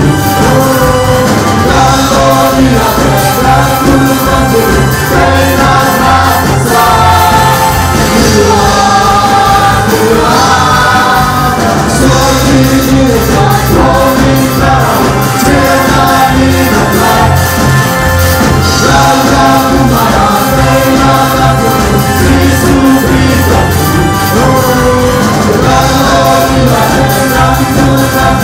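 Live worship band playing a gospel song, with several voices singing the melody over electric and acoustic guitars, keyboard and a drum kit keeping a steady beat.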